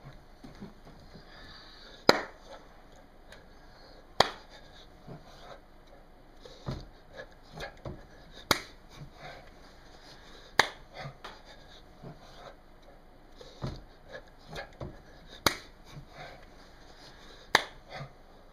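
A run of sharp knocks made by hands striking close to a webcam microphone. The loudest come about every two seconds, with softer taps and rustles between them.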